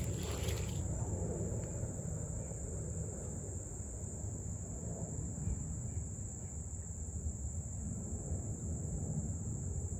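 Steady chorus of insects, a continuous high buzz, over a low rumble, with a brief rustle in the first second.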